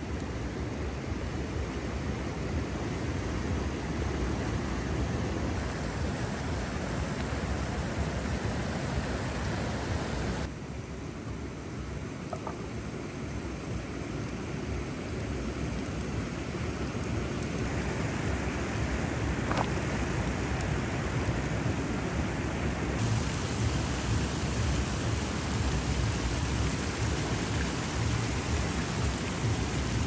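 Steady rush of river water pouring over a low weir, full of low rumble, its tone shifting abruptly twice.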